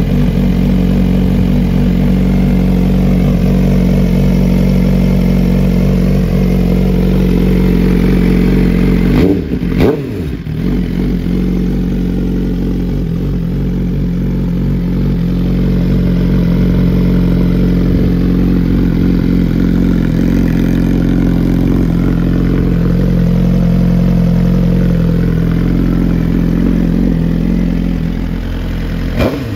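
Suzuki GSX-R1000R's inline-four engine, breathing through an aftermarket exhaust can, idling steadily, with quick throttle blips that send the revs up and back down about nine to ten seconds in and again at the very end.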